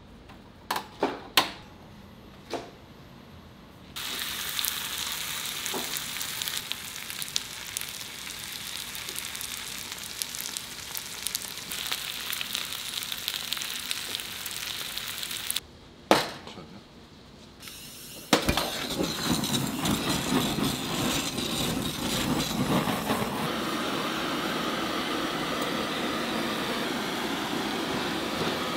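Pork intestines (gopchang) sizzling as they cook, a steady hiss dotted with small crackles. It begins after a few sharp clicks at the start, breaks off briefly about halfway, then resumes.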